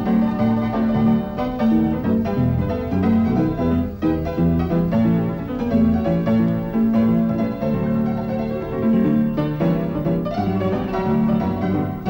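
Piano music: a melody over chords, playing without a break.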